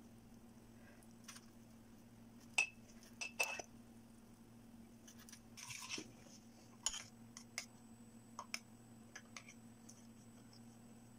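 Faint, scattered light clinks and taps of kitchenware as a spoon and cookies are handled against a glass plate and a metal pan, about a dozen sharp ticks spread out irregularly, over a faint steady low hum.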